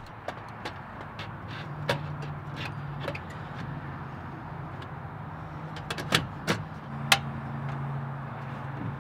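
Portable butane camp stove being set up and lit: sharp metal clicks as the gas canister is seated and locked in, then a few louder clicks of the ignition knob near the end as the burner catches. A steady low hum runs underneath.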